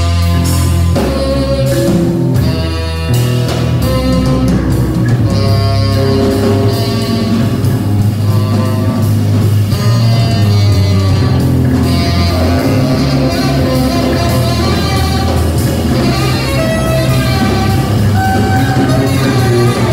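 Live jazz trio playing loud: saxophone over a heavy, sustained low bass line from an amplified plucked-string instrument, with a drum kit.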